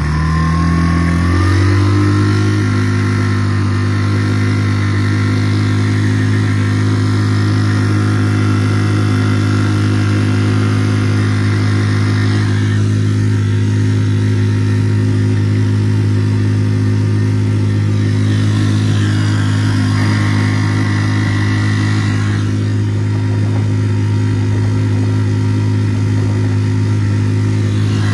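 Tohatsu 3.5 HP single-cylinder four-stroke outboard revving up over the first two seconds, then holding a steady high-speed note, pushing the inflatable at about 8 knots with a Doel Fin hydrofoil and aluminium prop fitted and the trim all the way down.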